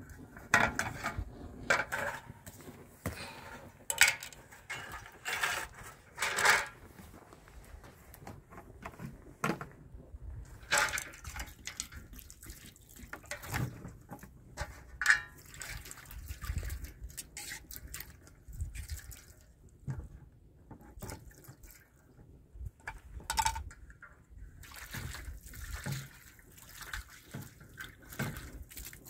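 Water splashing and trickling in short irregular bursts, with scattered knocks and clatters.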